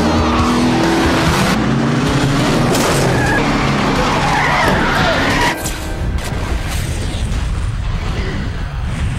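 Car engine revving hard and tyres squealing as the car skids, mixed with background music. The car sound cuts off abruptly about five and a half seconds in.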